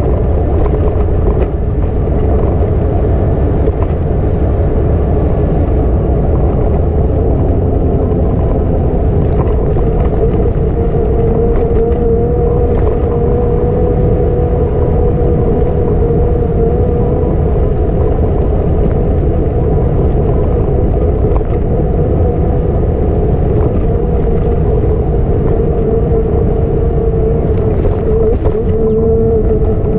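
Steady wind rumble on the microphone of a camera moving along a bike path. A steady mid-pitched hum runs through it, and a second, lower hum joins near the end.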